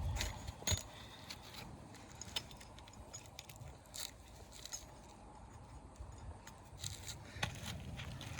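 Faint scattered scrapes and sharp little clicks of asphalt roofing shingles and hand tools being handled.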